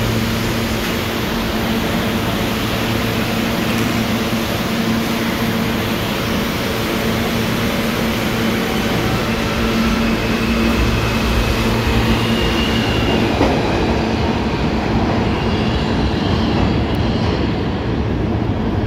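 R160B subway train with Alstom propulsion pulling out of the station and accelerating, with traction motor whine over wheel and rail rumble. Higher motor tones come in about halfway through as it picks up speed.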